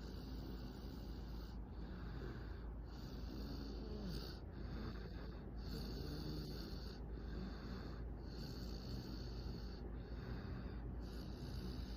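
Snoring in sleep: regular, even snoring breaths, roughly one a second, each with a hissing rasp.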